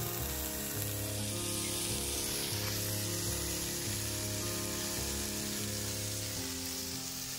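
Steak sizzling in a frying pan, a steady hiss, under background music of held chords that change every second or so.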